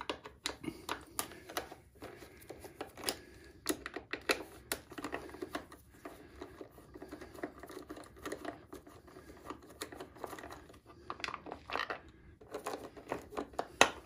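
Irregular small clicks and light rattles from a 6 mm hex driver working the fuse-box cover's fasteners, and the cover being handled and pulled loose, with soft rustling in between.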